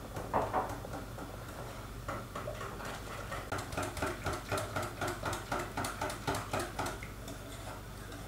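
Pancake batter being stirred by hand in a bowl, in rhythmic strokes about three a second, as the flour is mixed into the milk and eggs.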